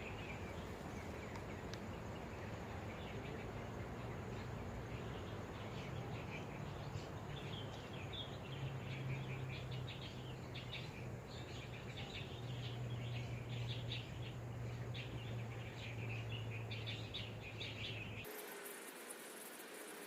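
Outdoor ambience: rapid high chirping calls from small creatures over a steady low hum, the hum dropping out abruptly near the end.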